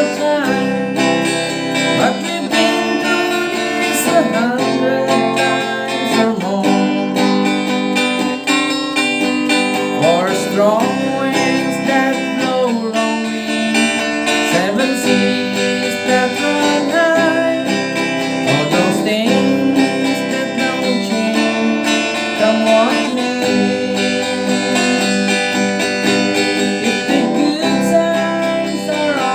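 Acoustic guitar strumming a slow country-folk song in an instrumental passage without singing, with a melody line that bends in pitch over the chords.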